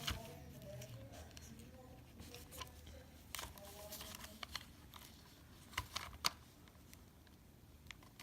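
Faint scattered clicks and taps of plastic headset parts being handled and fitted together by hand during reassembly of a Turtle Beach Stealth 520 headset.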